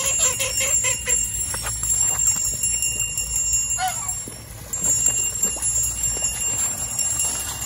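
A small hand bell shaken repeatedly, ringing steadily: the keeper's call signal for the zoo's white domestic ducks, which come only to their own kind of bell. A duck quacks once about four seconds in.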